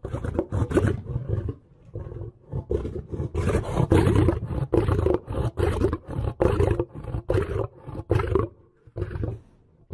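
Lion roaring: a deep call starts abruptly, then after a short pause comes a long run of deep roars repeated about two to three times a second, dying away near the end.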